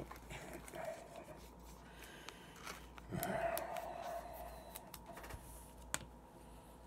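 Quiet handling of an Upper Deck hockey trading card: small clicks and rustles of card stock between the fingers, a soft breathy sound about three seconds in, and one sharp click about six seconds in as the card is set down.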